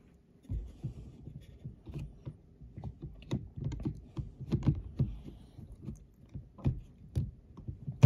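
An LG dishwasher's plastic drain pump motor being twisted by hand against its housing and locking tab: irregular plastic clicks and knocks.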